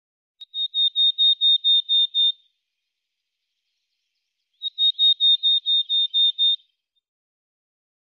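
Bald eagle calling: two runs of high, piping notes at an even pitch, about five a second. Each run lasts about two seconds, and the second starts about four and a half seconds in.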